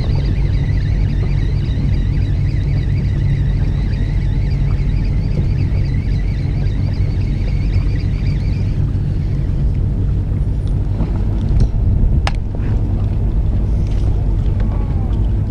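Fishing boat's engine running with a steady low rumble. A wavering high whine sits over it until about nine seconds in, and a single sharp click comes near the end.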